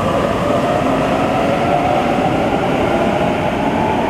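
Electric double-deck suburban train moving along an underground station platform: a steady rumble of wheels and running gear with a faint motor whine that rises slightly and then falls.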